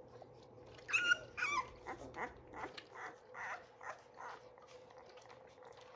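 One-week-old Labrador puppies squeaking and whimpering as they nurse: a louder cry about a second in, then a run of short squeaks that die away after about four seconds.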